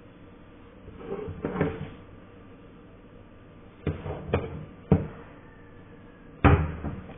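A few dull knocks and bumps at irregular spacing: a scuffling cluster a second or so in, three knocks in the middle, and the loudest knock near the end.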